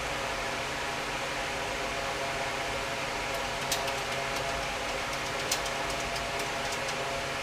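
Steady machine hum throughout, with a few light clicks partway through as small hardware is handled.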